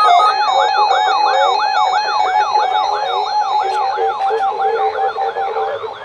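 Weather radio receivers sounding their alert alarms for an EAS Required Monthly Test. A warbling siren sweeps up and down about three times a second over a steady pulsing beep, and the beep stops shortly before the end.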